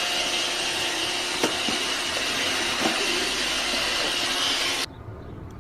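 A steady motor noise, a loud even whoosh with a faint high whine over it, that cuts off suddenly about five seconds in.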